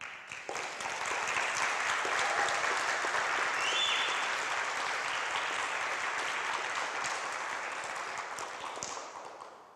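Audience applauding, building up over the first second, holding steady and fading away near the end.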